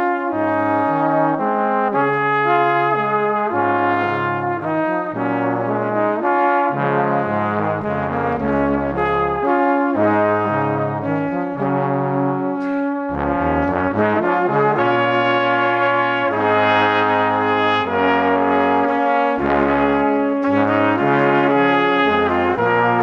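Instrumental background music: held chords over a bass line that changes note every second or two.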